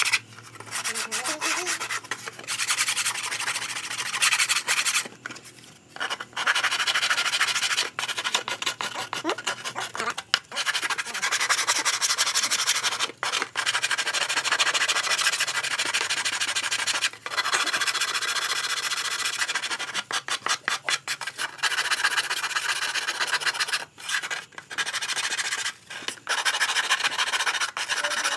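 Hand sanding of a wooden miniature truck body: abrasive paper rubbed over the wood in quick back-and-forth strokes, scratchy and steady, with a few short pauses.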